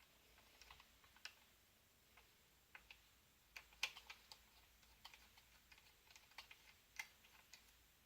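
Faint, irregular small clicks and ticks of a screwdriver turning a small screw out of a plastic toy figure's head, along with the plastic parts being handled; the sharpest clicks come about four and seven seconds in.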